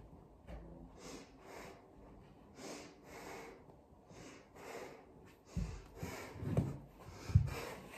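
A person breathing out in repeated short, noisy puffs, about one to two a second. Three dull low thuds come in the second half, louder than the breaths.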